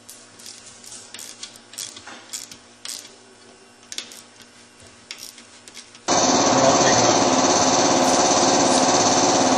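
Scattered light metallic clicks and clinks of a hand ratchet and socket working on ATV engine-case parts. About six seconds in, a loud, steady motor buzz starts abruptly and keeps going.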